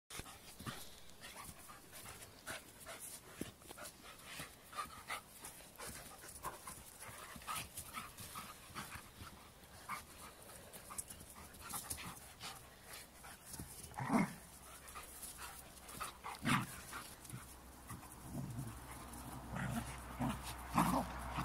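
Two standard poodles, a puppy and an adult, play-fighting: panting and scuffling, with three brief louder dog vocalisations about 14 and 16 seconds in and near the end.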